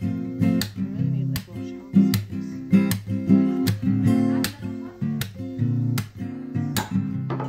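Acoustic guitar strummed in a steady rhythm, about two strokes a second: background music.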